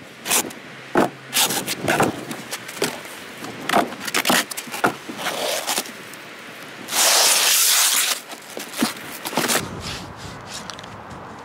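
A hand rubbing and scraping over gritty, sandy brickwork and bitumen roofing felt, with scattered short clicks and knocks. There is one louder, longer scrape about seven seconds in.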